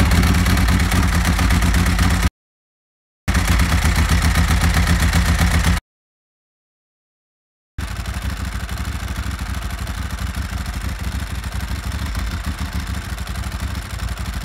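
Ducati 996's L-twin engine running steadily while its two throttle bodies are balanced against a vacuum gauge during throttle synchronisation. The sound cuts out abruptly twice, and the last stretch is quieter.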